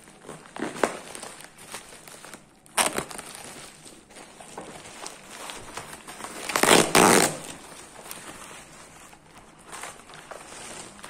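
Plastic bubble wrap crinkling and rustling as it is handled and pulled open, with a sharp crackle about three seconds in and a louder burst of crinkling around seven seconds in.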